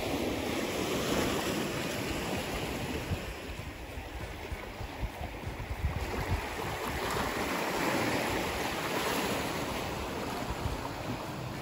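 Small waves lapping and washing on a beach in a steady wash of water, with wind gusting on the microphone.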